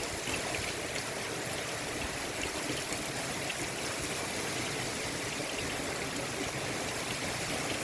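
Torrential thunderstorm rain pouring down, a steady dense hiss with scattered drip and splash ticks.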